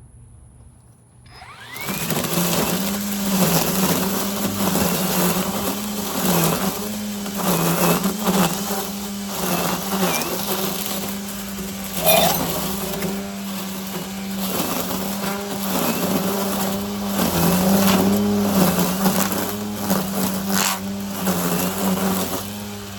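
Kobalt string trimmer (weed eater) cutting overgrown grass. Its motor starts up about a second and a half in and runs at a steady pitch that sags briefly now and then as the line bites into the grass, under the hiss and slap of the spinning line.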